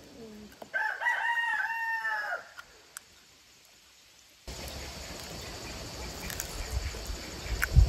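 A rooster crowing once: a single crow of about two seconds that rises slightly and falls away at the end. After a short gap there is a steady noisy rumble, with a low thump near the end that is the loudest sound.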